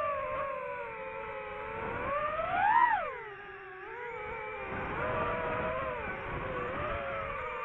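DJI FPV drone's motors and propellers whining, several close tones at once; the pitch climbs to its loudest peak about three seconds in as the throttle is pushed, then drops and settles back to a steady hover-like whine.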